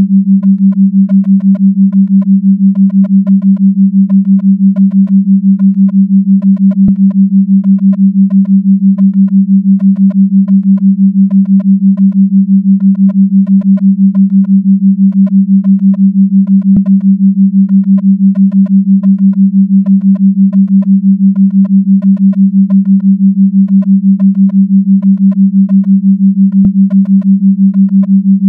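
A synthetic tone near 200 Hz pulsing steadily about six times a second, a 6 Hz pulsed tone, with faint higher tones flickering in time with it. Three faint clicks fall about ten seconds apart.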